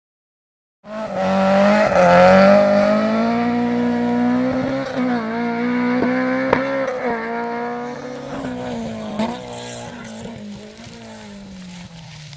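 Rally car engine at high revs, starting abruptly about a second in, its pitch rising and falling with the throttle, with a few sharp cracks, then fading as the car moves away.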